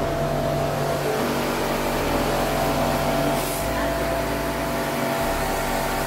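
Electric jet-spray pressure washer running steadily, a motor hum under the hiss of water spraying, as the AC coil is washed.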